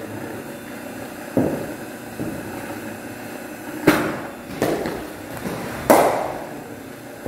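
Four sharp knocks of a cricket ball in an indoor practice net, each followed by an echo. The loudest, near the end, is the bat striking the ball as the batsman plays a shot.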